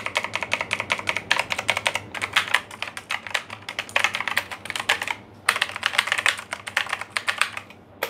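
Mechanical keyboard keys typed rapidly, a dense run of clicky keystrokes with a brief pause about five seconds in. The loud keystroke sound is what sets a mechanical keyboard apart from a membrane one.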